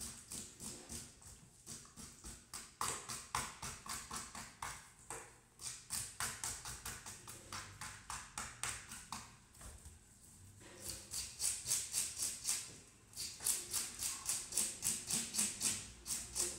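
Fish scaler scraping scales off a whole fish on a wooden board, in fast even strokes at about three or four a second, in runs broken by short pauses.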